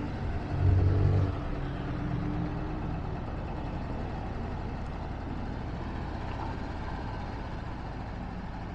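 A motor vehicle engine running, louder for a moment about a second in, then settling into a steady, even hum.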